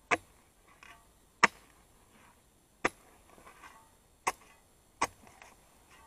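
Steel spade blade striking into dry, clumpy earth, five sharp strikes roughly a second and a half apart, each followed by a short scrape and patter of loosened soil.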